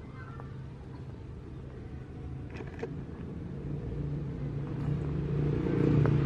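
Low engine rumble growing steadily louder, with a rising rushing noise near the end as a heavy vehicle draws close.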